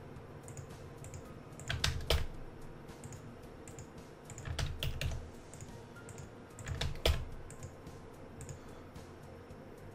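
Typing on a computer keyboard in short, scattered bursts of key clicks, the sharpest click about seven seconds in.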